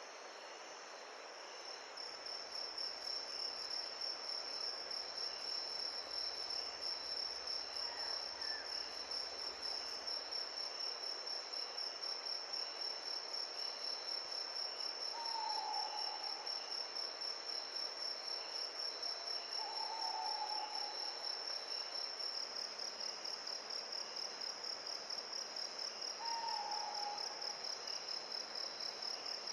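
A steady high insect trill, pulsing rapidly, comes in about two seconds in and holds. Over a soft even hiss, a short falling call sounds now and then, three or four times.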